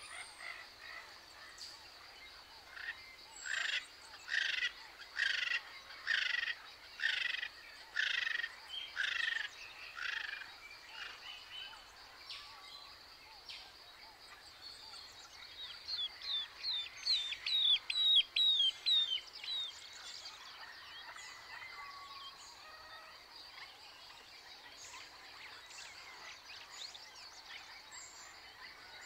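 Birds calling: a run of about eight calls roughly one a second, then, after a pause, a quicker run of about eight short, high, down-slurred notes. A faint, steady, high hiss runs underneath.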